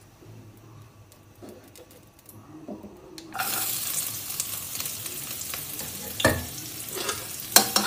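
Chopped ginger and garlic dropped into hot oil in a wok start sizzling suddenly about three seconds in, and the sizzle holds steady. A metal spatula knocks sharply against the wok a few times near the end.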